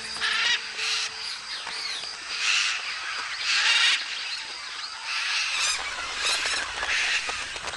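A flock of macaws and smaller parrots calling: short, harsh cries one after another, about one or two a second, several birds overlapping.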